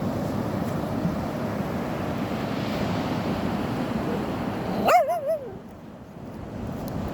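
Steady rush of sea waves and wind. About five seconds in, a dog gives a short, wavering whine.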